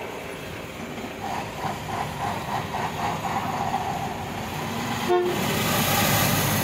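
John Deere 595D wheeled excavator's diesel engine and hydraulics working as it loads soil into a dump truck. A short horn-like toot sounds about five seconds in, then a louder rush of soil pouring from the bucket into the truck bed near the end.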